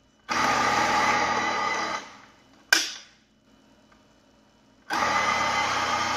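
Countertop electric blender pulsed twice in short runs of under two seconds each, churning a thick mix of crushed Oreos, condensed milk and cream. A single sharp click comes between the two runs.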